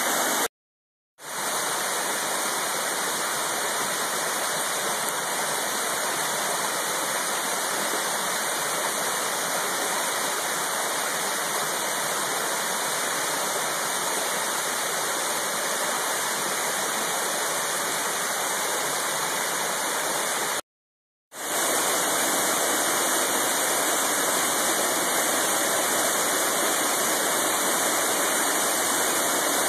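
Waterfall: a steady rush of falling water. It cuts to silence twice for under a second, just after the start and about two-thirds of the way through.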